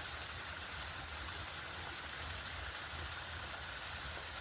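Steady hiss of running creek water, even and unbroken, over a low rumble.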